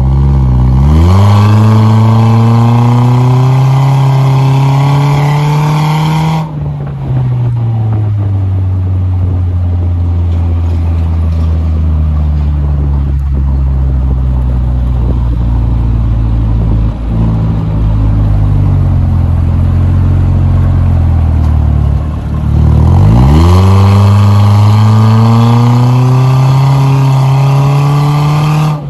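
Toyota Premio's engine revved through its custom-built exhaust. The pitch climbs quickly, is held high for about six seconds, then drops back and settles low and steady. A second held rev starts a few seconds before the end.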